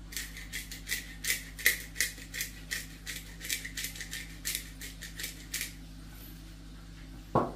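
Hand pepper mill being twisted to grind pepper, a dry clicking crunch about three times a second for over five seconds. A single knock follows near the end.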